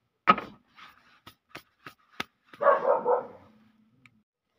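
A dog barks twice: a sharp bark about a quarter second in and a longer one about two and a half seconds in, with a few light clicks in between.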